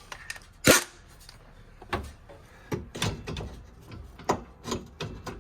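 Hand tools knocking and clicking against metal as a socket is worked onto a sway bar link pin nut: one sharp knock about a second in, then a handful of lighter, irregular clicks.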